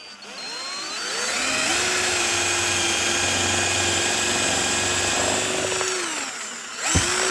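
JPT 21V cordless drill in drilling mode at its higher second speed, boring an 8 mm wood bit through wood. The motor whine rises as it spins up, holds steady for about four seconds, then winds down, with a brief second run just before the end.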